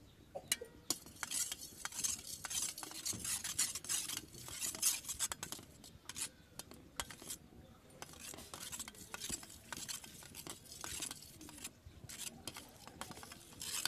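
Metal spoon beating raw eggs with spice powder and salt in a stainless steel bowl: quick scraping and clinking against the bowl, with a few short pauses.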